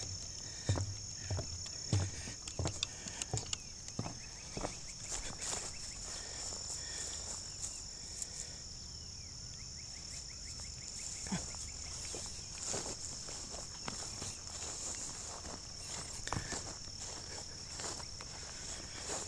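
A steady, high-pitched insect chorus drones without a break. Irregular footsteps and small crunches on the ground sound over it.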